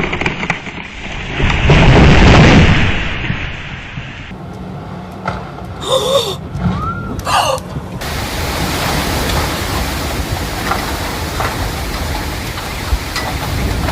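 Strong storm wind with rain, a dense rushing noise buffeting the microphone, surging loudest about two seconds in. The sound changes abruptly about four and eight seconds in.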